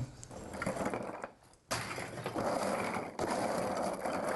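Rough scraping and rattling of hand work on material at a workbench, starting suddenly about a second and a half in with small clicks through it.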